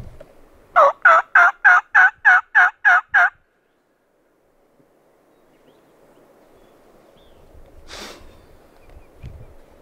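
A turkey call run close by: a string of nine loud, evenly spaced hen yelps, about three and a half a second, lasting about two and a half seconds. Then a faint hush with a single short click near the end.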